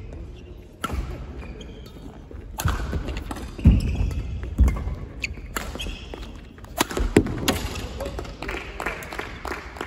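Badminton rally: a string of sharp racket hits on the shuttlecock, with players' shoes thudding and squeaking on the wooden court floor.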